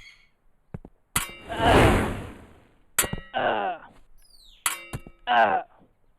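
Blacksmith's hammer striking metal in ringing clangs, three main blows. Between them come a loud rushing hiss and two short scraping sounds.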